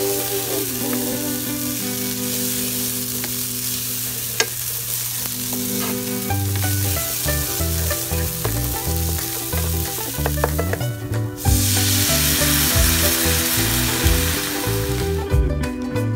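Paella rice and sofrito frying in oil in a nonstick pan, sizzling steadily as it is stirred with a wooden spatula. The sizzle grows louder after a brief break about eleven seconds in.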